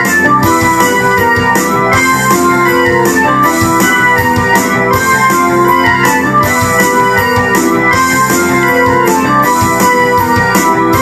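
Ensoniq SD-1 synthesizer keyboard playing an organ-like, electric-piano sound: a busy rock part of chords and bass notes over a steady beat of sharp percussive hits.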